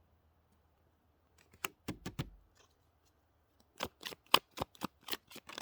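Tarot cards being shuffled and handled: a few sharp card snaps about a second and a half in, then a quick run of snaps in the second half.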